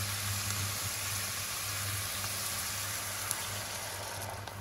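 A hot pan of fish bones, onions and tomato frying in oil, sizzling steadily over a low hum. Near the end the sizzle dies down as fish stock is poured in.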